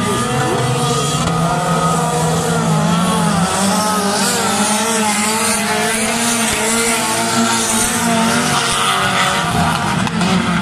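Several stock car engines running hard on a dirt track, their pitches overlapping and rising and falling as the cars accelerate and lift off. The sound is loud and continuous.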